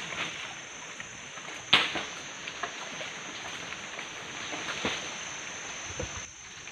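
Splashing and squelching of hands working through shallow muddy water, with scattered clicks and one sharp knock about two seconds in. A steady high-pitched tone runs underneath.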